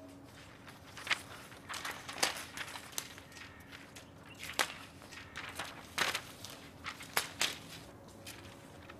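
Footsteps on a paved surface: a dozen or so uneven, irregularly spaced steps, over a faint steady hum.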